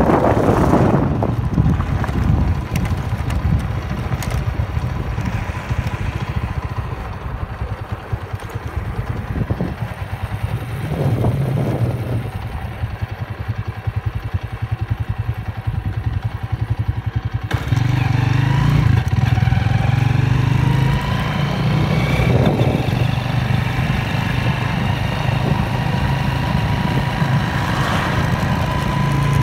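A motor vehicle's engine running steadily while moving along a road. A little past halfway the sound changes abruptly and the engine hum becomes louder.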